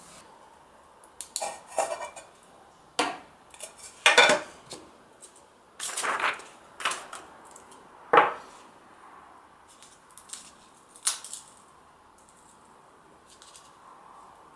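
Hard objects being handled on a tabletop: a run of sharp knocks and clattering clinks with short ringing, the loudest about four and eight seconds in, then quiet from about eleven seconds on.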